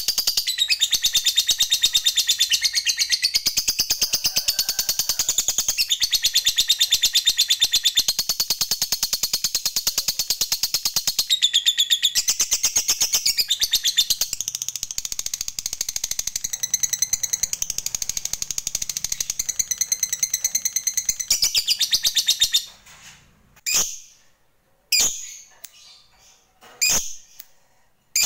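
Lovebird giving a long, unbroken, very rapid high chattering trill, the 'ngekek panjang' prized by keepers in a fighter bird. It stops about three-quarters of the way through, and a few short separate chirps follow.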